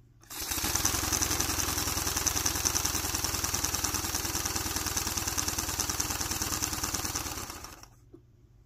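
Paper two-cylinder boxer compressed-air engine running fast on lung-blown air: a rapid, steady chatter of air puffs that starts about half a second in and dies away after about seven seconds, once the breath runs out.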